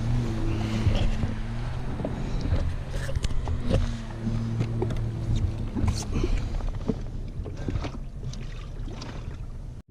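Jet ski engine idling with a steady low hum, with scattered knocks and clatter from fishing gear being handled on board.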